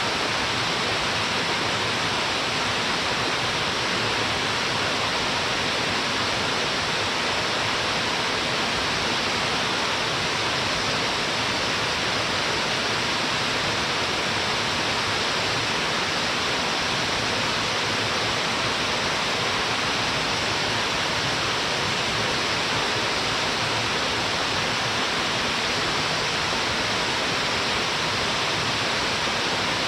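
Waterfall crashing steadily into a wide plunge pool, a constant, even rush of falling water.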